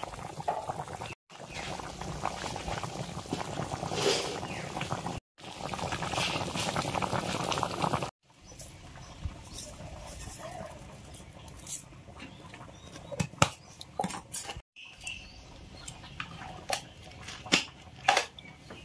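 Thick curry gravy boiling vigorously in a pot, a dense bubbling and spluttering. After a cut about eight seconds in, a quieter stretch of scattered sharp clicks as whole spices are set down on a stone grinding slab.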